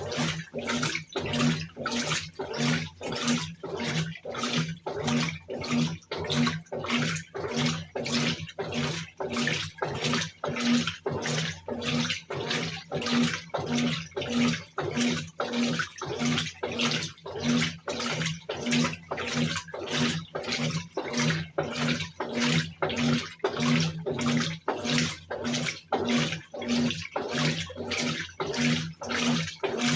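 Brastemp top-loading washing machine agitating its wash load on the turbo setting: water sloshing back and forth with the drive motor humming on each stroke, about two strokes a second, in the wash stage.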